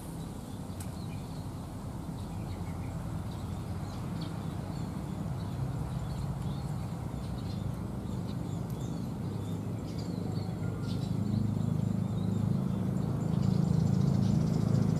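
Outdoor pond-side ambience: faint bird chirps over a steady low hum that grows louder in the last few seconds.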